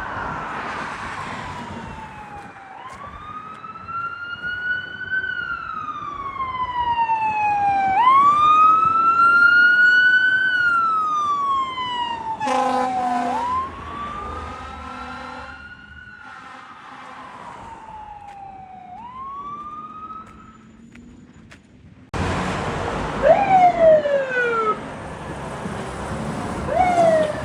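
Fire apparatus siren wailing in slow rising-and-falling sweeps, with a horn blast of about a second near the middle. After a sudden cut, a siren gives short, quick falling sweeps.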